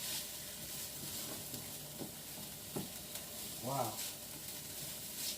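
Eggs frying in oil in a pan, with a steady sizzle as they are stirred and two light clicks about two and three seconds in.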